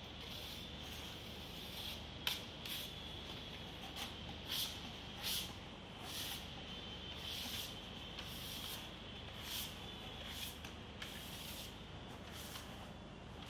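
Hand trowel scraping screeding paste across a cement-rendered wall in short, repeated hissing strokes, roughly one a second.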